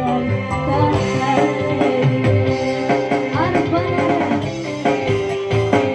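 Live band music through a large outdoor sound system: an electronic keyboard over a drum rhythm, with a woman singing into a microphone.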